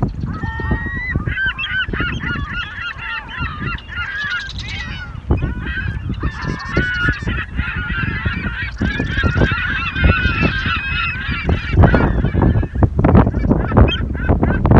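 A flock of birds calling, many short calls overlapping almost without pause. Wind buffets the microphone underneath, growing stronger near the end.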